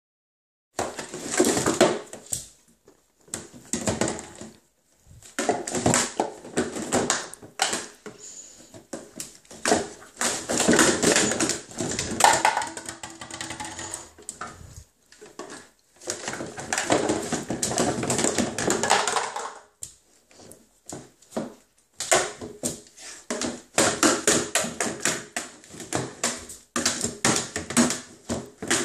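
A Vizsla rummaging through a plastic toy box, the toys and a plastic bottle clattering and crackling against the box in bursts broken by short pauses.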